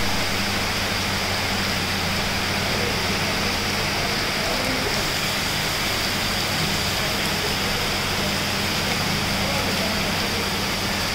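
Heavy rain pouring steadily over flooded ground, trees and roofs, with a steady low hum underneath.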